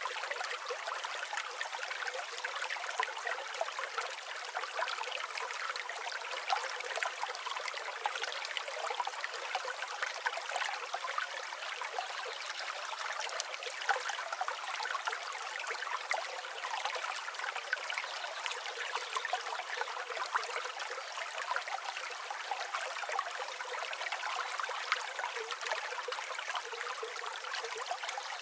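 Water running and trickling steadily, full of small splashes and bubbles, thin-sounding with no deep rumble.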